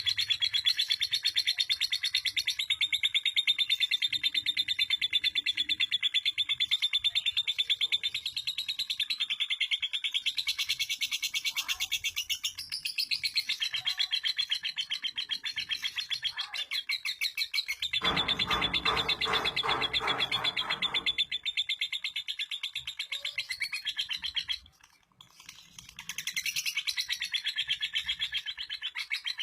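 Female lovebird's long unbroken ngekek: a rapid, high-pitched chattering trill that runs on and on without a pause, the long-duration song prized in lovebird singing contests. A lower, fuller sound joins for about three seconds past the middle, and the trill breaks off for about a second near the end.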